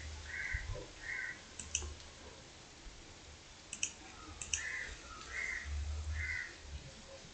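Computer mouse clicking, mostly in quick double clicks, over a low hum. Twice, a bird calls three short notes in a row in the background.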